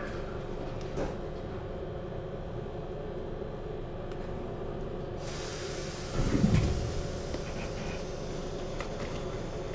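Class 455 electric multiple unit standing at a platform with its on-board equipment humming steadily. About five seconds in an air hiss starts, and just after six seconds the pneumatic sliding doors close with a short thud.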